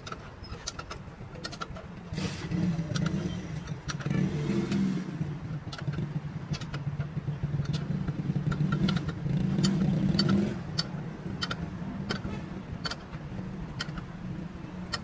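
A vehicle engine running, louder for several seconds in the middle and then dropping back, with scattered sharp clicks.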